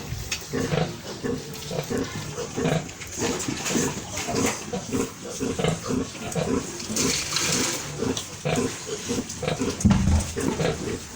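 Pigs grunting over and over in short, rapid grunts, with a loud low knock near the end.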